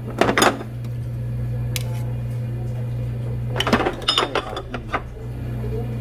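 Metal tongs clinking and scraping against stainless steel food trays and small ceramic dishes while side dishes are served: a short clatter just after the start and a longer run of clinks about three and a half seconds in, over a steady low hum.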